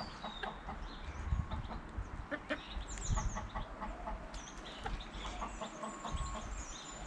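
Domestic hens clucking quietly, with short high chirps and scattered sharp taps throughout.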